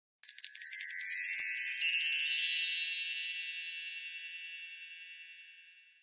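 Bright, high-pitched shimmering chime sound effect: a quick rising sweep of many tinkling tones that then rings out and fades away over about five seconds.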